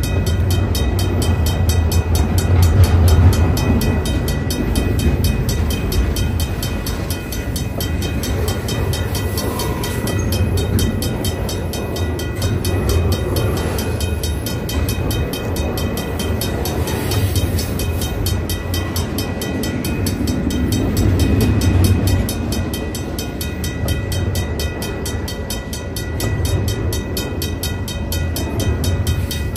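Double-stack intermodal freight train rolling past: TTX well cars loaded with shipping containers, with a steady rumble of steel wheels on rail that swells and eases as the cars go by.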